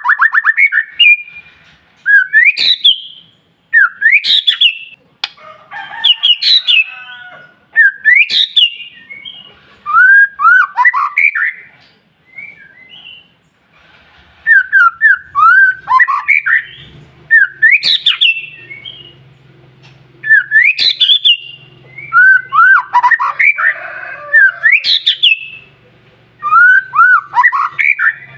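White-rumped shama (murai batu) singing in loud, fluty phrases of quick rising and falling whistles, one phrase about every two seconds with short pauses between.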